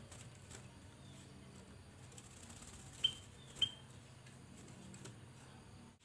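Caged kutilang emas (black-capped bulbul) giving two short, sharp high chirps about half a second apart, midway through, over faint clicks.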